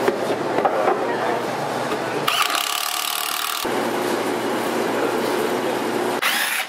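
Construction noise of tools working on wood, in several short edited segments that change abruptly; a stretch of high hissing from about two seconds in to nearly four.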